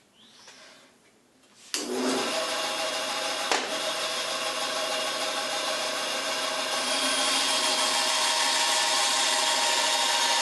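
Delta bandsaw switched on less than two seconds in, its motor and blade then running steadily with a hum. From a little past the middle, the blade cuts into a plywood blank, adding a louder, brighter hiss.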